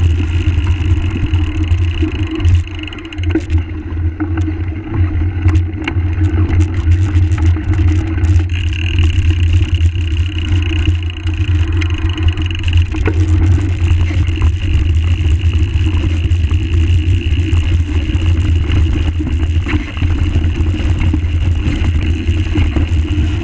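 Steady rumble of a mountain bike's tyre rolling over a gravel and leaf-litter trail, heard through a bike-mounted action camera with wind noise on its microphone and frequent small knocks and rattles from the rough ground.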